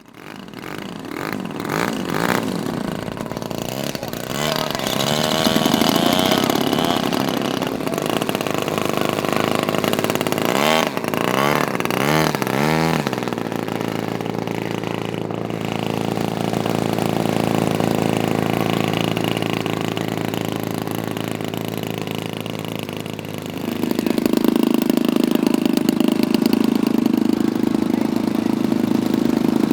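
Piston engines of radio-controlled model Bearcat warbirds running, swinging up and down in pitch twice in the first half, then holding a steadier note that grows louder about three-quarters of the way through.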